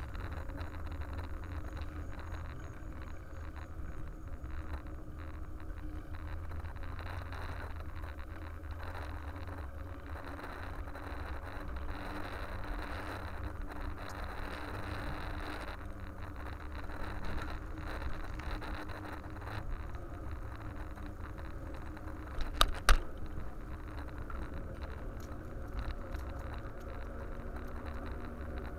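A bicycle rolling along asphalt, heard from a camera on the bike: steady wind rumble on the microphone with road noise, and a quick pair of sharp knocks about three-quarters of the way in.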